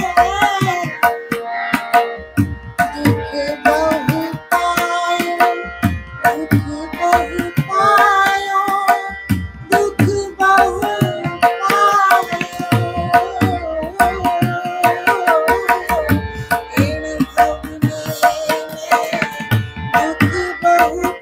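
Woman singing a Hindi devotional bhajan, accompanied by a tabla pair playing a busy, steady rhythm of quick strokes and by a held keyboard drone underneath.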